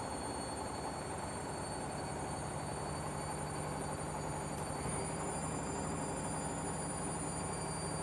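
Beko and Candy washing machines running together: a steady rumble and hum with a high-pitched motor whine, which shifts slightly in pitch just under five seconds in.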